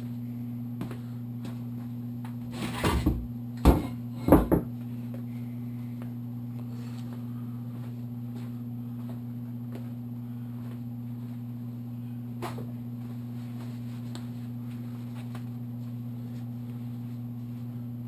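Engine parts on the clutch side of a KLR650 engine being handled: a short run of metal clunks and knocks about three to four and a half seconds in, and one more click later, over a steady low hum.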